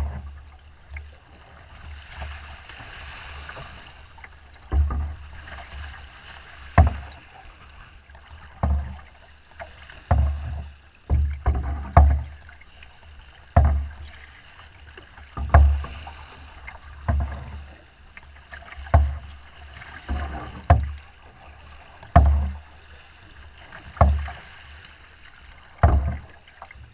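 Small boat's hull slapping into choppy wind-driven waves, a deep thud every second or two over a steady wash of water.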